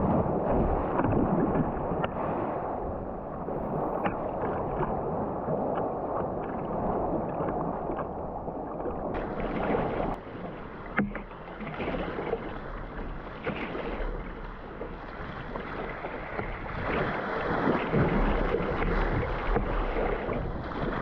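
Kayak paddle strokes in sea water: the blades dip and splash and water sloshes around the boat, with wind buffeting the microphone. The splashing gets brighter about nine seconds in.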